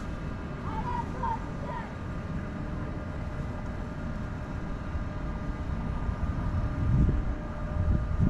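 Outdoor urban ambience: a steady low rumble with faint steady tones above it, and a few short chirps about a second in.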